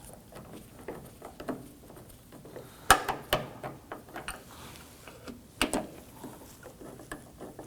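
Hand ratchet clicking as the door handle's mounting screw is tightened, in small irregular clicks with a few sharper clicks and knocks about three and five and a half seconds in.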